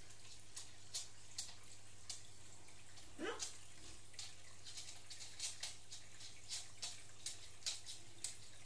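Faint aquarium water trickling with irregular drips, about one or two a second, over a steady low hum. A brief rising sweep about three seconds in.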